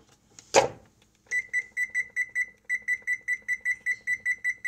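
A single knock about half a second in, then an electronic timer beeping rapidly, about four short high beeps a second with a brief break partway through, as it is set for 20 minutes.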